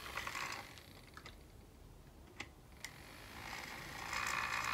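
Small low-start-current solar motor spinning a little propeller under direct sunlight. It gives a faint whirring buzz that drops away after about half a second and comes back louder from about three and a half seconds in as the panel is tilted to the sun. A few light clicks from handling the plastic frame fall in the quieter stretch.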